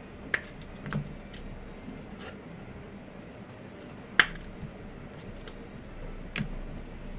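Trading card being handled in clear plastic sleeves and a rigid holder: a few light clicks and rustles of plastic, the sharpest click about four seconds in.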